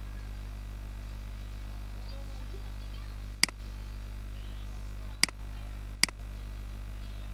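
Three sharp single clicks of a computer mouse, about three and a half, five and six seconds in, over a steady low electrical hum.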